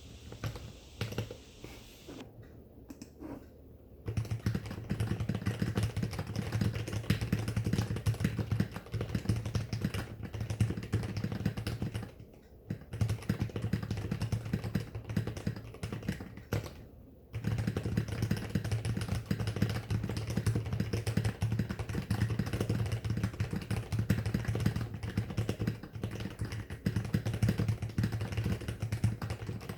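Computer keyboard being typed on quickly in a dense run of key clicks. The typing is light and broken in the first few seconds, then pauses briefly about twelve seconds in and again about seventeen seconds in.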